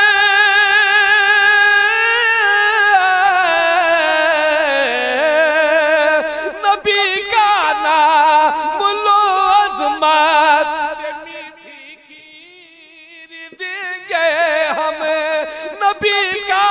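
A man sings a naat unaccompanied, holding long ornamented notes with a strong vibrato. Early on, the held note slides slowly downward. Near the end his voice falls away for about two seconds, then comes back in.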